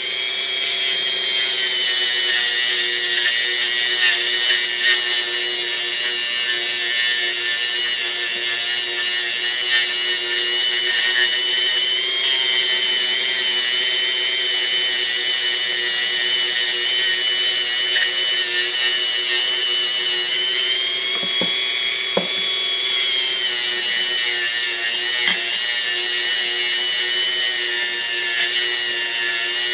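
Electric power tool motor running steadily with a high whine and hiss as it works on a small steel tool. The pitch shifts briefly about twenty seconds in, with a few light knocks.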